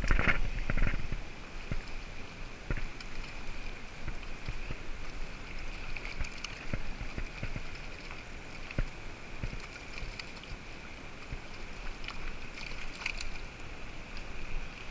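River water running steadily over a shallow stream bed, with scattered small splashes and knocks as hands work in the water; a louder rustling disturbance in the first second.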